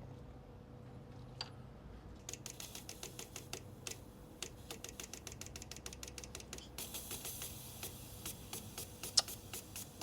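Petrol fuel injector being pulse-tested, its solenoid clicking rapidly in a long run of clicks. About two-thirds of the way in, a steady hiss joins the clicking. The injector, which the owner finds stuck open, is leaking.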